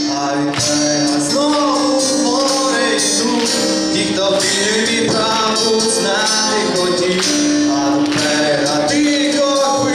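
Live pop-rock song played through a PA: a man singing over acoustic guitar and keyboard, with steady percussion.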